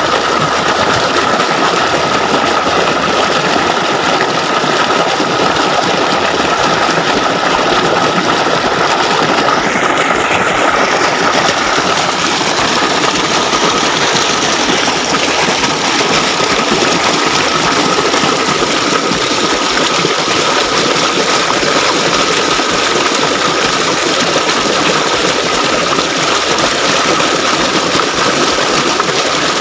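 River water gushing fast over a rock close to the microphone, a loud, steady rush.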